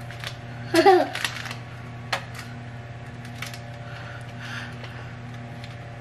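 Small clicks and taps of a stainless steel squeeze-handle cookie scoop working cookie dough onto a parchment-lined baking sheet, the sharpest about two seconds in, over a steady low hum. A short bit of voice sounds about a second in.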